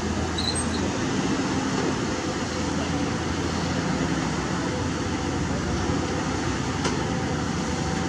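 Caterpillar 320D L long-reach excavator's diesel engine running steadily under load while the boom lowers and the bucket digs into the canal bed.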